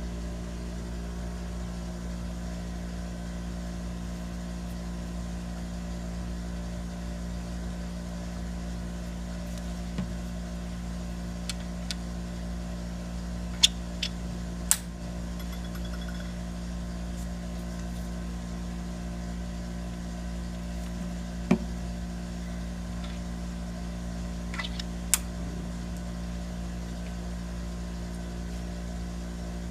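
A steady low mechanical hum, with a few sharp clicks of metal air-bearing parts being handled and set down on the table, the loudest two close together around the middle.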